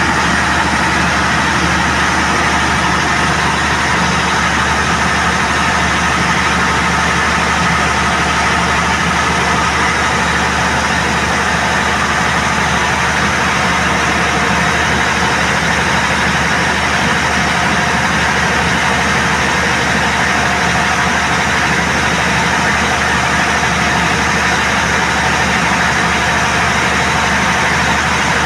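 Perkins 2306 six-cylinder diesel generator engine running steadily at constant governed speed under load, about 260 A per phase at 400 V and 50 Hz. The engine has been rebuilt after a water-mixing fault and holds a steady note.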